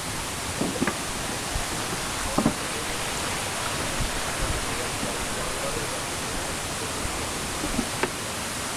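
Steady rush of a shallow stream running over a small weir, with a few short knocks.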